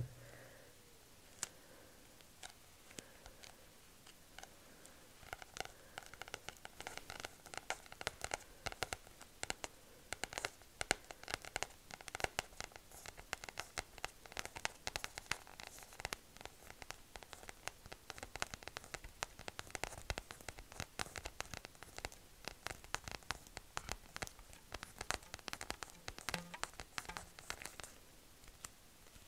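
Long acrylic fingernails tapping and scratching quickly on the paper cover of a gold leaf booklet held close to the microphone. The taps are sparse at first, then come fast and dense from about five seconds in, thinning again near the end.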